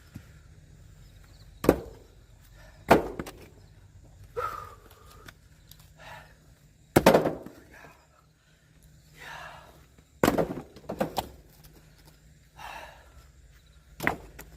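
Firewood being split by hand: about five hard, sharp strikes a few seconds apart, with softer knocks between them.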